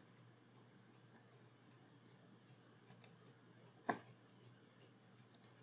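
Computer mouse button clicks: a quick double click about three seconds in, a stronger single click a second later, and another double click near the end, over near-silent room tone.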